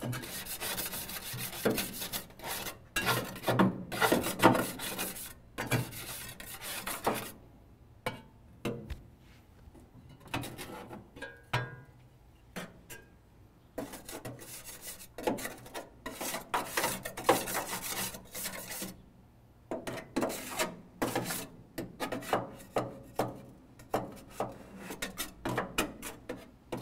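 Hand scraper rasping against the steel inside of a Coyote pellet grill's body, scraping off stuck-on grease and ash. It goes in runs of quick back-and-forth strokes, broken by a few short pauses.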